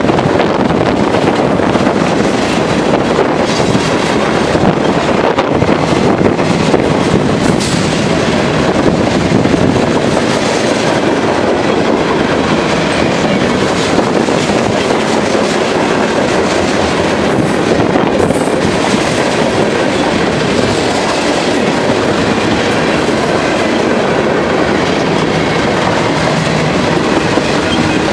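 Freight cars of a CSX mixed freight train rolling past close by: a steady, loud rush of steel wheels on the rails with clattering over the rail joints.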